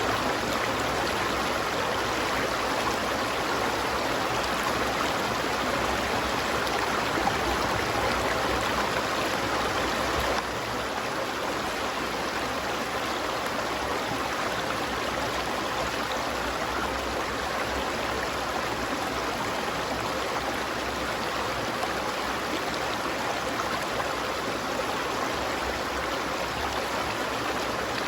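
Stream water running steadily, a continuous rushing that drops slightly in level about ten seconds in.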